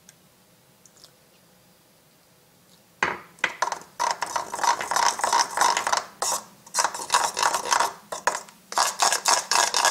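A metal spoon scraping and stirring round a plastic bowl, mixing cocoa powder, icing sugar and milk into a chocolate coating. The quick, repeated scraping strokes start about three seconds in.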